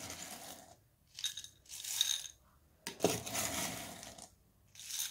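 Crushed ice being scooped with a large spoon from a bowl and tipped into a glass, crunching and clinking in several separate scoops.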